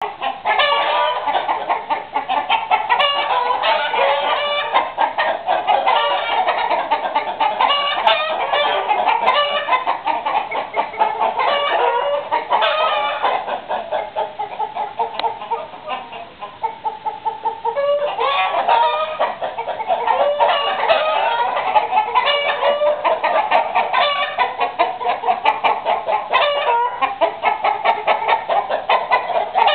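A flock of domestic chickens, hens and roosters, clucking continuously in many overlapping calls, thinning briefly a little past halfway.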